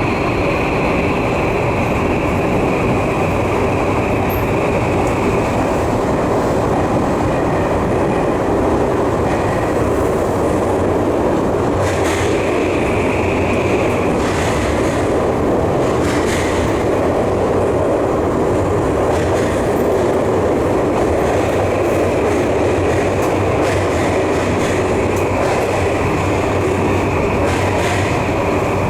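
Tokyu 3020 series electric train running, heard from inside the car: a steady rumble of running noise with a high steady tone that fades and returns, and a few sharp clicks from the wheels.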